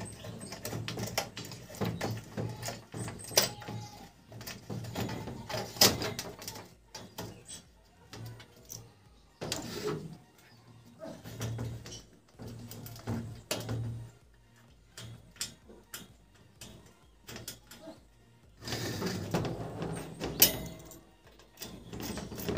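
Metal wire guard of an electric room heater rattling and clicking as it is handled and screwed back in place with a screwdriver, in irregular bursts with short quiet gaps.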